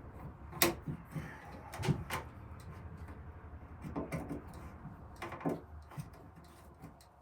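Scattered sharp wooden knocks and clicks, about eight in all, the loudest about half a second in, from handling a cupboard door and its hinge hardware.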